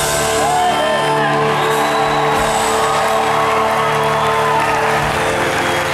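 Electric guitar played through a talk box: long held guitar notes shaped by the player's mouth into voice-like vowel sounds, with a short bending phrase about half a second in, over the backing band.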